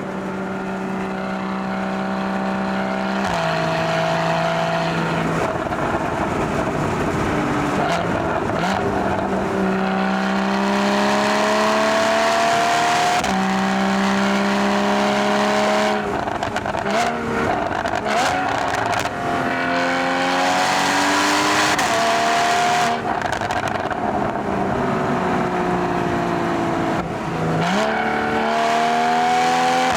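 Porsche 981 Boxster GTS's 3.4-litre flat-six engine and exhaust pulling hard through the gears. The engine note climbs and drops back at each upshift, several times over, under steady road noise.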